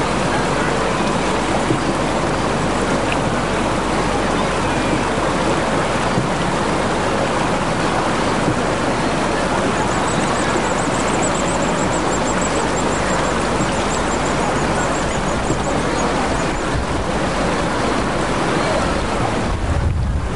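Rushing mountain river: a steady, loud roar of white water running over rocks. A low rumble of wind on the microphone comes in near the end.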